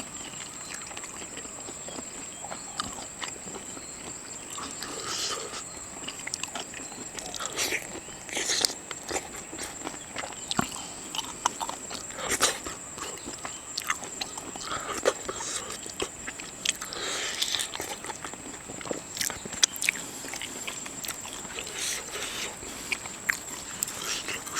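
Eating sounds: irregular biting and chewing with scattered clicks and crunches, over a steady high-pitched whine.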